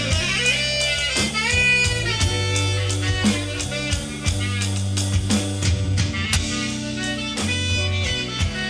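Instrumental band music: a drum kit keeping a steady beat under bass notes and a lead line whose notes bend in pitch.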